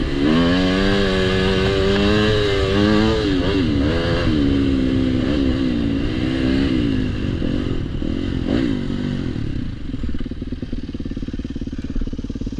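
Dirt bike engine revving up and down on a rutted muddy trail, its pitch rising and falling with throttle and gear changes. Over the last few seconds it runs lower and steadier as the bike slows.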